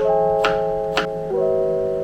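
Background music: soft lo-fi instrumental with sustained keyboard chords that change about every second and a half over a light, steady click beat.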